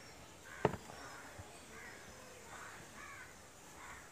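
Crows cawing several times, with one sharp knock a little over half a second in.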